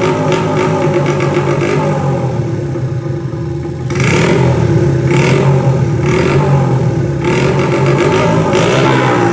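Custom Honda Monkey's single-cylinder four-stroke engine, breathing through a Pretty Racing exhaust, running and then revved in short throttle blips about once a second from about four seconds in.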